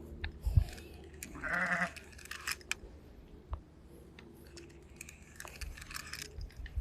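A single bleat from a goat or sheep about one and a half seconds in, with a few short clicks and knocks around it.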